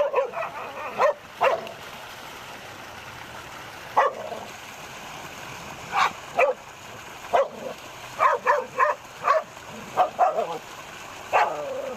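Short, sharp barks and yelps from an animal, coming singly and in quick runs of two to four, over a steady hiss.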